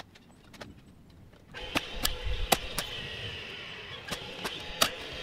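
DeWalt DCN45RN cordless roofing nailer driving nails through asphalt ridge-cap shingles: several sharp cracks at irregular intervals, the first about a second and a half in, over a steady hum that starts at the same time.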